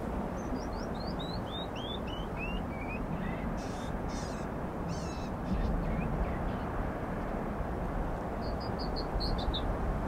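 Canyon wren singing its song, a cascade of about a dozen clear notes that step down in pitch over the first three seconds, over the steady rush of wind through pine trees. A few harsh calls come around the middle, and a quick run of short notes near the end.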